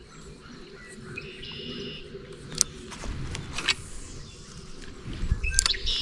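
A songbird giving a short buzzy call about a second and a half in and again at the end, over open-air ambience. Between the calls come a few sharp clicks and low handling knocks from the spinning rod and reel.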